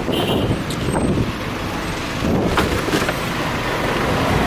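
Steady road vehicle noise: a car running amid traffic.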